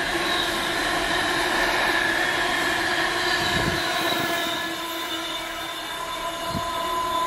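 Container freight train's wagons passing along the track at speed, with a steady whine of several held tones over the running noise of the wheels.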